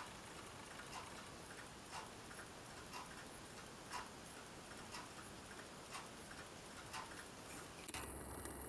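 1918 Illinois Watch Company pocket watch ticking steadily, a faint mechanical click repeating with a stronger click about once a second. Near the end a steady low hum and hiss come in.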